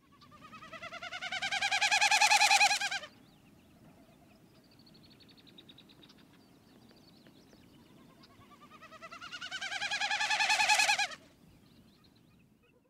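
Wilson's snipe winnowing, heard twice: each is a rapidly pulsed tone of about three seconds that grows louder and rises slightly in pitch, then cuts off suddenly. The sound is made by the snipe's outer tail feathers vibrating during its display dive.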